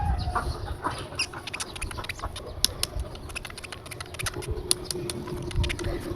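Irregular light clicks and crackles of small plastic toys and bags being handled, with a faint steady tone entering about halfway through.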